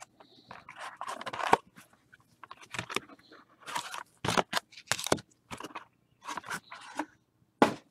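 Cardboard trading-card hobby box being handled and opened by gloved hands: irregular scraping and rustling of cardboard with scattered sharp clicks, the loudest a crack near the end.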